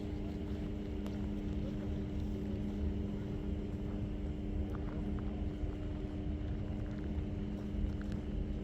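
Steady machine hum: two constant low tones over a low rumble, with a few faint clicks.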